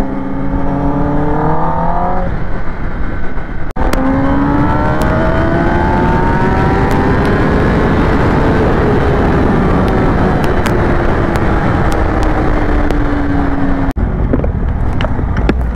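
Kawasaki Ninja ZX-10R's inline-four engine running at high speed under a heavy rush of wind on the microphone. The engine note climbs for about four seconds, then slowly drops as the throttle eases. The sound breaks off abruptly twice, about four seconds in and near the end.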